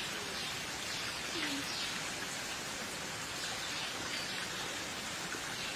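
Steady outdoor ambience: an even hiss with a few faint bird calls.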